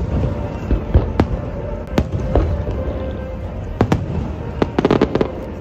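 Aerial fireworks going off: single sharp bangs every second or so, then a fast run of crackles about five seconds in. Music plays underneath.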